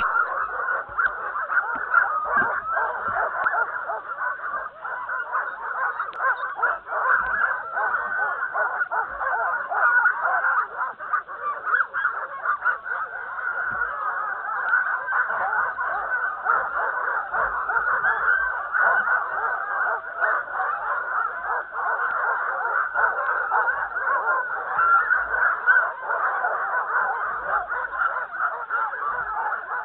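Harnessed sled dogs yelping and barking at once in a loud, unbroken chorus, the excited din of a team straining to run at a race start.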